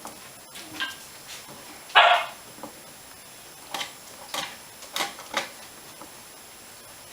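Five-week-old Icelandic Sheepdog puppies barking and yipping during play: one loud bark about two seconds in, then a run of four or five short, high yips.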